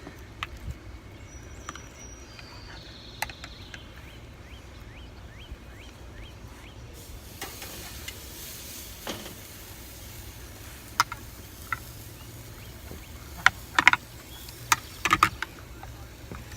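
Steaks going onto a hot charcoal grill: scattered clicks and knocks of metal on the grate, heaviest in a cluster near the end, and from about seven seconds in a steady sizzling hiss as the meat sears.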